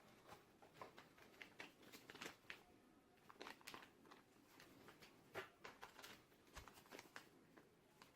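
Faint, irregular clicks and crinkling, like small plastic objects or packaging being handled, with a slightly louder click about five and a half seconds in.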